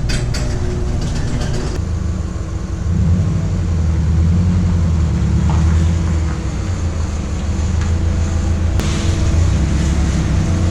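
Car engine running with a steady low drone and road noise, a hiss joining in during the last couple of seconds.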